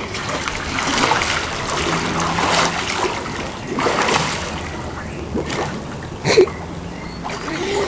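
Swimming-pool water splashing and sloshing as children move about in it, with a sharper splash about six seconds in.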